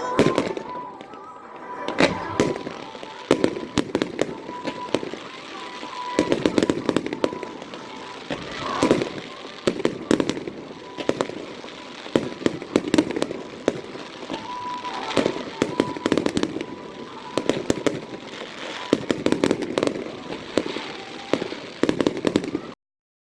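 Aerial fireworks bursting one after another, sharp bangs and clusters of crackling, with music playing underneath. The sound cuts off suddenly near the end.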